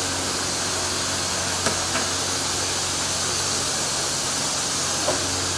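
Seasoned jerk chicken sizzling on a grill: a steady hiss with a few faint pops, over a low steady hum.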